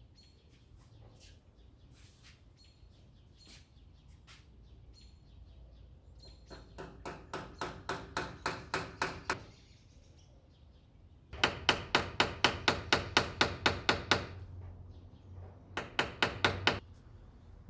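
Hammer driving a nail into a cement-rendered wall, struck in three runs of quick, even blows at about five a second. The first run grows louder, the second is the loudest and lasts about three seconds, and a short run comes near the end. Faint bird chirps sound in the first few seconds.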